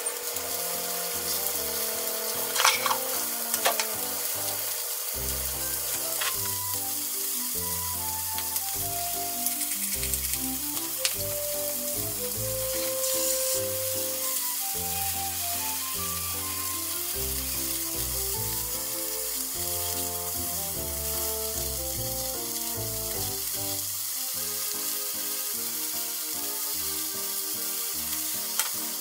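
Pork-wrapped vegetable rolls sizzling as they fry in oil in a frying pan, with a few sharp clicks about three seconds in; light background music plays under it.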